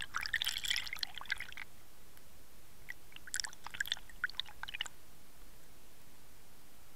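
Water bubbling and crackling around a Water Wolf underwater camera, in two short spells: one at the start, and another from about three seconds in to about five seconds in. A steady faint hiss runs underneath.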